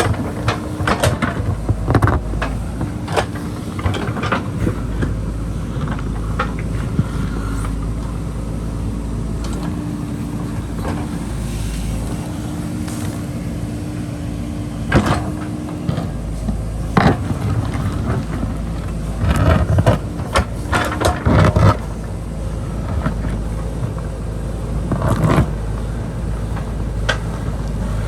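JCB backhoe loader's diesel engine running steadily under load while it digs, with repeated sharp knocks as the bucket works through soil and rock, several of them bunched together in the second half.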